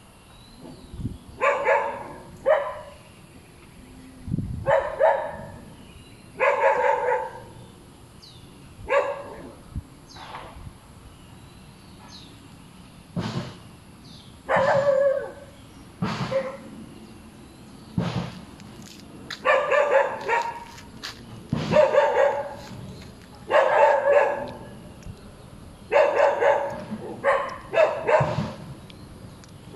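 A dog barking over and over: single barks and quick runs of two or three, every second or two, with short pauses between.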